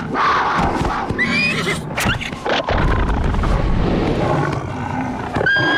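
Cartoon animal sound effects over dramatic music: a giant wolverine monster growling deeply, a sharp thud about two seconds in, and a pony whinnying, with a quavering neigh near the end.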